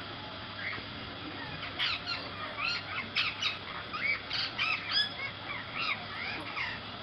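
Several birds calling at once: a busy run of short, arching chirps that starts about two seconds in and thins out near the end.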